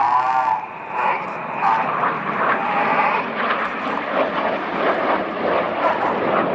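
Jet engine noise from the Red Arrows' BAE Hawk jets flying past in formation: a steady, loud rushing that builds after the first second and holds.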